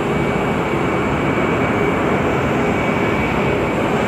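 Parked Boeing 747 freighter running with its power on: a steady loud rush with a constant high whine over it.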